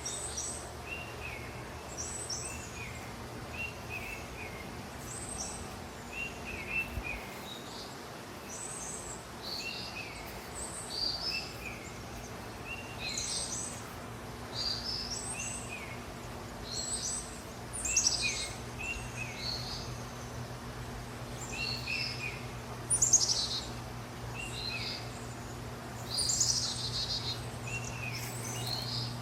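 Several birds chirping and singing: short repeated chirps alongside higher, more varied song notes, over a steady low hum.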